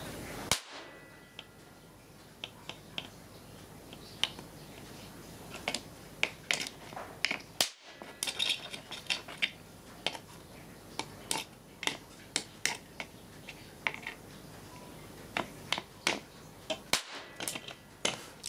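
A long series of sharp electrical snaps and pops, irregular and sometimes in quick clusters, from a charged capacitor bank being discharged through an electrode into the components of a TV circuit board, arcing and blowing parts.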